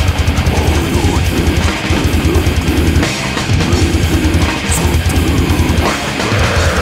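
Heavy metal song: distorted electric guitars over a drum kit, with fast, even bass-drum beats.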